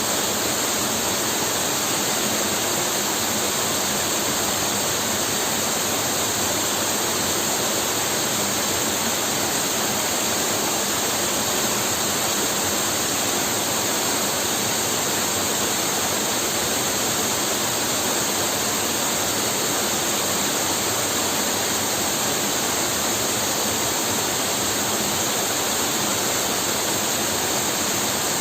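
Waterfall crashing into its plunge pool: a steady, unbroken roar of falling water.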